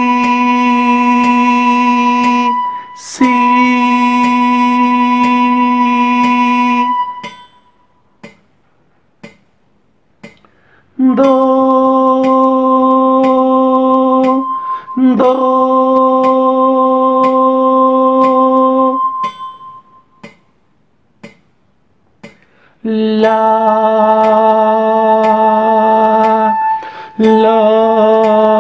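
A singing voice holding solfège note names as whole notes, about four seconds each at a steady pitch: "si" twice, a silent four-beat rest, "do" twice, another rest, then "la" twice.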